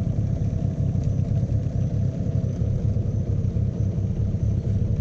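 Small boat's outboard motor running steadily, heard as a low rumble with a faint steady engine tone, mixed with wind rumble on the microphone.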